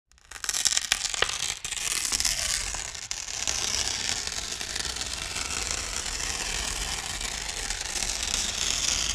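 A dense crackling hiss that starts suddenly out of silence, with a few sharp crackles in the first second and a half, then a steady rush of noise.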